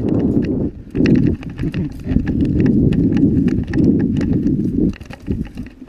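Mountain bike rolling fast down a rocky dirt singletrack. The knobby tyres rumble over dirt and loose stones, and the chain and frame rattle with many sharp clicks and knocks. The rumble drops away briefly just before a second in and again near the end.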